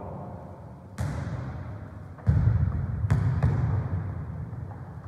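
A football being struck four times in a football-tennis rally, by feet, heads or the floor. Each touch is a sharp thump with a long echo in the large hall, the first about a second in and three more close together from about two seconds on.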